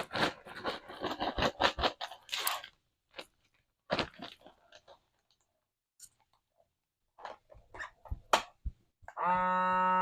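Plastic vacuum-seal bag crinkling and rustling in irregular bursts as it is handled and filled. About nine seconds in, a vacuum sealer's pump starts with a steady hum.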